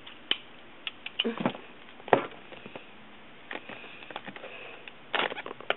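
Scattered clicks, taps and short scrapes from a boxed Apple Universal Dock being handled and opened, with a faint rustle of packaging between them; the sharpest knock comes about two seconds in and a quick cluster near the end.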